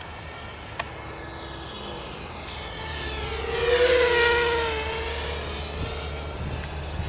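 Walkera F210 racing quadcopter's motors and propellers whining as it flies fast past, swelling to loudest about four seconds in, the pitch falling as it goes by.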